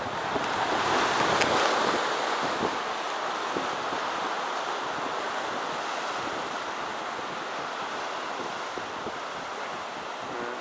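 Surf washing onto the beach, swelling about a second in and then running on steadily, with wind on the microphone.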